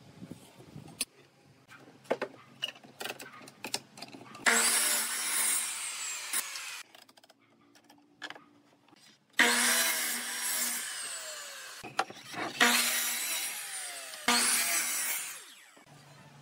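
Electric miter saw cutting pine boards: four bursts of motor whine and blade noise, each starting suddenly and tailing off as the saw winds down. Before them come a few light clicks and taps.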